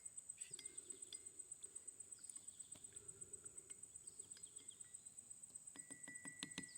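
Faint insect chirping outdoors: a steady, rapid, high-pitched pulse repeating several times a second, with a few light clicks near the end.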